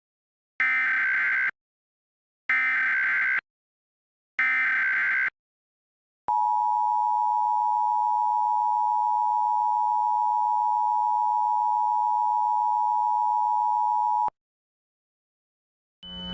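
Emergency Alert System header: three one-second bursts of warbling digital data tones (the SAME header, which encodes the alert's originator, event and area), followed by the two-tone EAS attention signal held steady for about eight seconds and then cutting off. Together they signal that an emergency alert message is about to be read.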